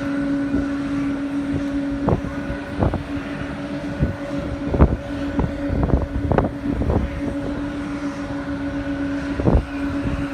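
A steady machine-like hum with a low drone, broken by irregular knocks and thumps, about eight of them.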